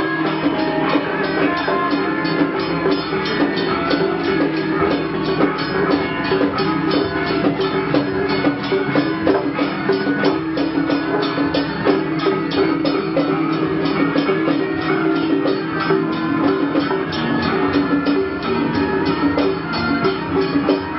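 Music with a steady, fast percussion beat over sustained pitched instruments.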